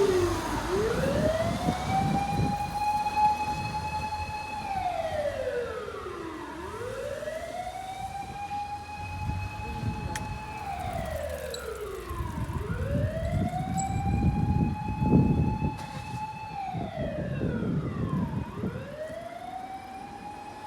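Japanese fire rescue truck's siren wailing. Each cycle rises quickly, holds high for about three seconds, then slides down, repeating about every six seconds, with the truck's engine and road noise underneath. It grows fainter toward the end.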